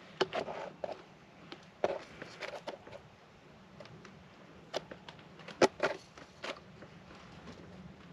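Gravel and small stones clicking and scraping as a target is dug and scooped out of bedrock: a scatter of short, irregular knocks, the sharpest just before two seconds and around five and a half seconds in.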